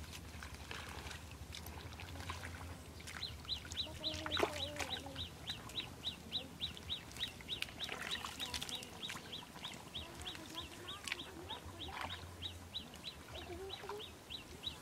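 Hands splashing and sloshing in shallow muddy water. From about three seconds in, a high, short chirp repeats rapidly and evenly, about four times a second.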